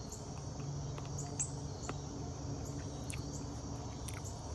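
Steady chorus of insects, likely crickets, chirping in the background, with a few faint clicks scattered through.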